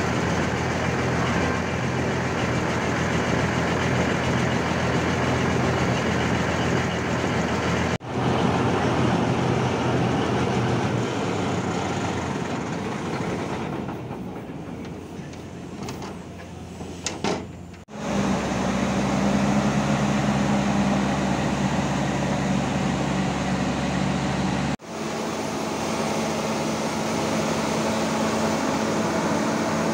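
Heavy diesel machinery running steadily, its low drone changing abruptly at edits about 8, 18 and 25 seconds in. In the last few seconds it is the Hitachi EX1200 excavator's Cummins QSK23 diesel engine running on a test after its radiator was replaced.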